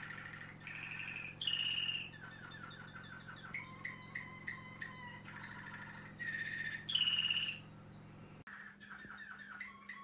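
A Waterslager Malinois canary singing a continuous song of changing phrases: rapid trills and runs of repeated notes, loudest in two high phrases about a second and a half in and again about seven seconds in. A steady low hum lies underneath and stops about eight and a half seconds in.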